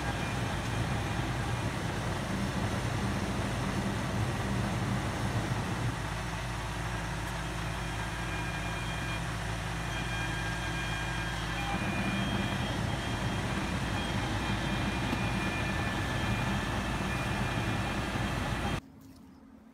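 Truck engine running steadily to power a boom truck's hydraulic knuckle-boom crane as it sets down a lumber bundle, with a shift in the low engine note between about 6 and 12 seconds. The sound stops abruptly near the end.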